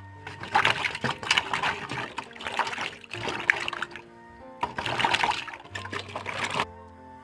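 Water splashing and trickling in two long stretches, cutting off suddenly near the end, over background music.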